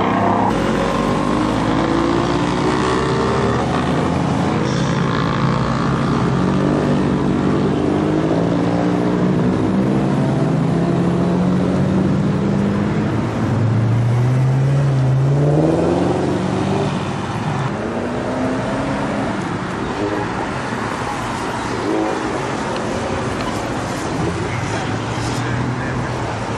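Modified cars' engines revving and accelerating as the cars drive past one after another, the pitch rising and falling with each car. One engine climbs sharply in pitch about halfway through.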